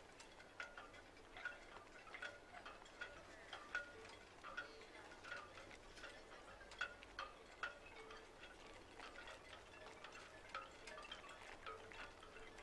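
Faint, irregular tinkling of chimes, a ringing note or two every second.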